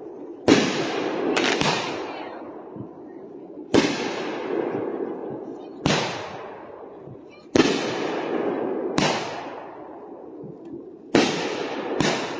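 Consumer-grade aerial firework repeater shots going off, a sharp bang about every one and a half to two seconds, each trailing off in a long echoing rumble.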